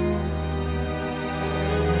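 Background music with long held notes over a low sustained drone.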